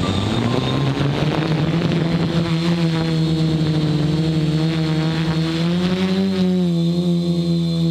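Quadcopter's electric motors and propellers spinning up, heard from the camera on the drone's frame: the buzz rises in pitch over the first two or three seconds, then holds steady with slight wavers as the throttle shifts.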